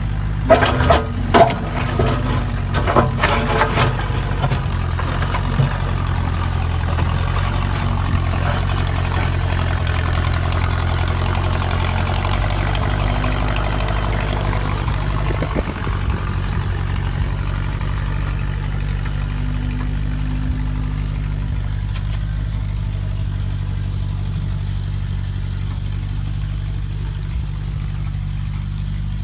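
Old backhoe tractor's engine running steadily while digging, with a cluster of sharp clanks and knocks in the first few seconds. The engine grows a little fuller and louder in the middle, then eases off about halfway through.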